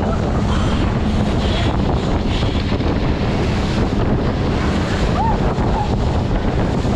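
Wind buffeting an action camera's microphone, with sea water rushing and splashing past an inflatable towed ride moving fast over choppy water. The noise is loud and steady throughout.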